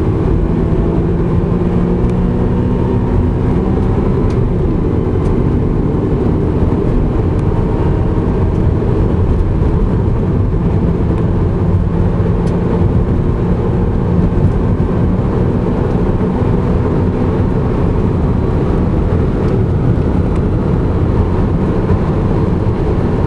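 BMW M3 running flat out at high speed. The engine note climbs gradually over the first few seconds, then merges into a loud, steady rush of wind and road noise.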